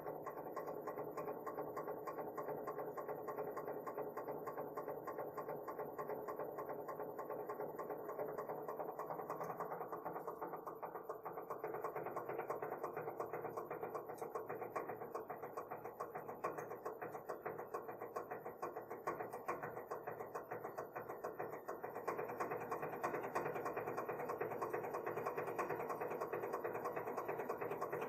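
Hydraulic press pump running steadily as the press builds force on a bolt held in a tension rig. It gets a little louder about two-thirds of the way through.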